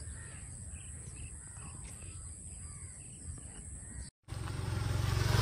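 Crows cawing now and then over a low, steady outdoor rumble. A little past four seconds the sound cuts out briefly, and a louder, steady rushing noise then rises.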